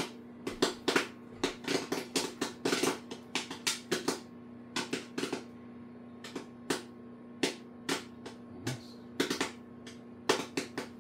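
Popcorn popping in a covered pot on a gas burner: irregular single pops, a few a second with short gaps, the pot already full and the popping near its end. A steady low hum runs underneath.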